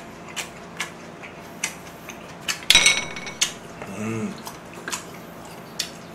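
Eating utensils clicking against dishes in scattered single knocks, with one louder, ringing clink about three seconds in.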